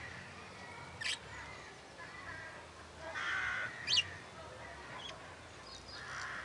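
A flock of budgerigars chattering softly, broken by sharp calls: a short chirp about a second in, a harsh squawk a little after three seconds followed by a loud high chirp, and another squawk near the end.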